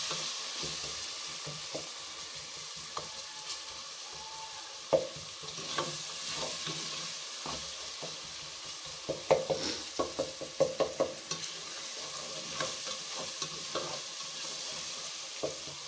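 Tomato-onion masala with freshly added spices sizzling in oil in an aluminium pot while a slotted spoon stirs and scrapes through it; a run of quick scrapes and taps of the spoon against the pot comes about nine to eleven seconds in. The spices are being fried into the masala.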